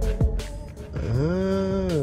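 Background music with a hip hop beat: two deep kick-drum hits in the first half second, then a held pitched note from about a second in.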